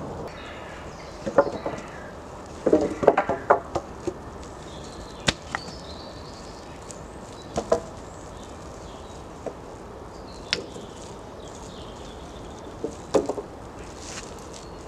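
Wooden poles and cut logs knocking together as they are handled and laid in place, in irregular hollow clunks. A quick run of several clunks comes about three seconds in, and single ones follow every few seconds.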